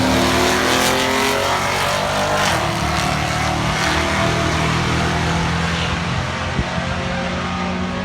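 Loud engines of drag-racing vehicles at a drag strip, their pitch gliding over the first couple of seconds, then a steadier engine drone.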